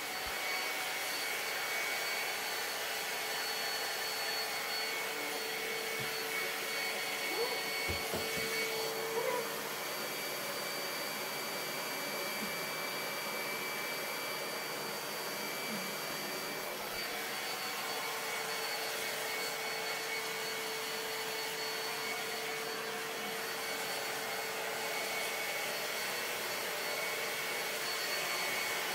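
Handheld hair dryer running steadily, a continuous rush of blown air with a thin whine over it. A few faint knocks come about a third of the way through.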